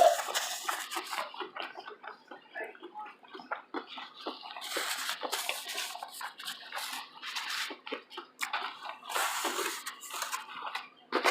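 Close-miked chewing and wet mouth sounds of someone eating: irregular smacks, clicks and moist crunching, with a louder burst at the very end.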